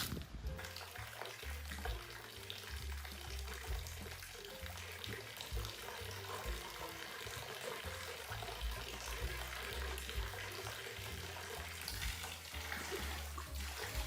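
Steady running water, under background music.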